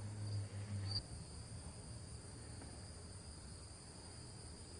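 Crickets chirping steadily in a high, even band, with a low hum underneath that stops about a second in.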